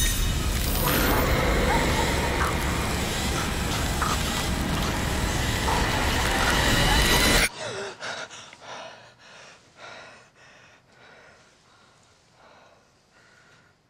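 A loud, dense horror sound effect, with a whoosh at the start, cuts off suddenly about halfway through. Then a woman's quick, gasping breaths come about twice a second and fade away.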